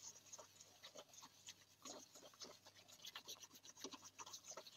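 Faint, irregular scraping and light ticking of a wire whisk stirring against the inside of a stainless steel pot of thick soup.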